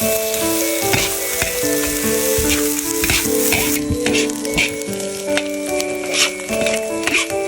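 Food sizzling in a hot pan as it is stir-fried, with frequent short scrapes of the spatula, under background music with held melodic notes.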